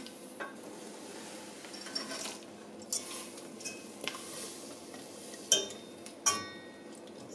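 Wire whisk stirring chopped chocolate into cream in a stainless-steel saucepan, with scattered metal clinks against the pot; the two loudest come about five and a half and six seconds in, each ringing briefly.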